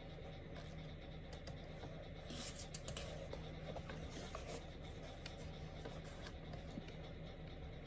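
Pages of a paperback book being turned, a papery rustle that is densest about two and a half to three seconds in, with small ticks of paper, over a faint steady hum.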